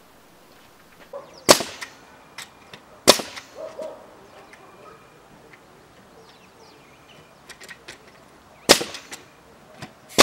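Pneumatic nail gun driving nails into a pine timber frame: a few sharp shots, spaced one to several seconds apart, with lighter clicks and knocks between them.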